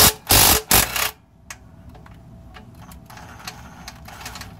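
Loud rustling knocks for about a second as the camera is set down face down, then faint, irregular clicking from a ratchet loosening the 14 mm oil pan drain bolt.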